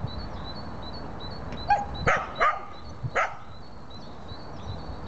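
A dog barking four times in quick succession, starting a little under two seconds in, over a faint high chirp that repeats about three times a second.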